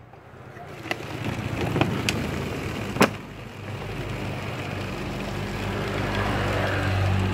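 Tap water running into a plastic bottle as it fills, with a few clicks of the thin plastic being handled and one sharp knock about three seconds in. A steady low hum runs underneath.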